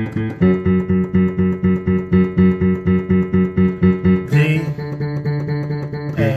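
Yamaha digital piano playing the three-chord progression of D, A and F sharp minor as chords struck over and over in a steady rhythm, about four strikes a second, changing chord twice.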